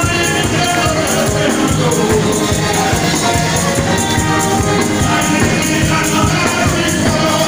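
Live church praise music: singing over steady, driving percussion, loud and continuous.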